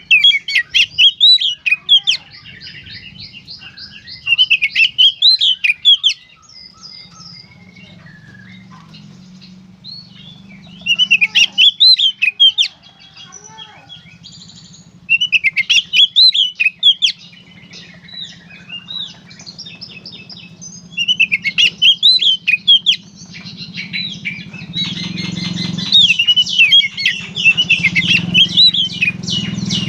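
Oriental magpie-robin (kacer) singing loud, rapid warbling phrases in the 'gacor konslet' style, each about two seconds long, repeated about six times with short pauses between. A low steady hum runs underneath and grows louder near the end.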